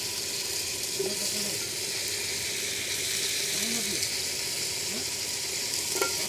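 Steady sizzle of chopped onions frying in coconut oil in a clay pot.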